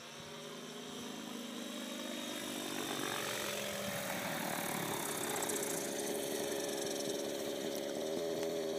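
Radio-controlled helicopter coming down to land, its motor and spinning rotor blades growing louder over the first few seconds as it nears, then running steadily once it is on the ground.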